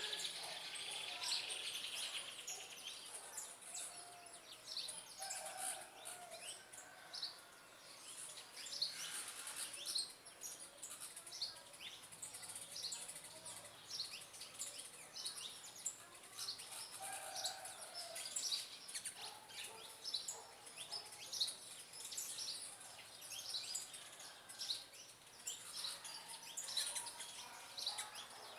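Several small birds chirping and calling, with many short quick chirps throughout and a few lower calls now and then, over a steady high hiss.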